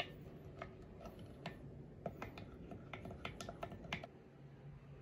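A wooden straw stirring a cold drink in a clear tumbler, tapping and clicking lightly and irregularly against the cup for about four seconds, then stopping.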